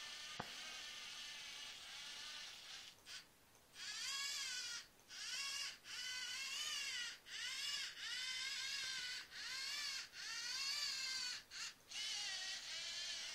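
LEGO Mindstorms NXT servo motors whining as the tracked robot drives at low speed under remote control. The whine runs steadily for about three seconds, pauses, then comes in a string of roughly one-second runs with short breaks, its pitch wavering as the motors' speed and load change.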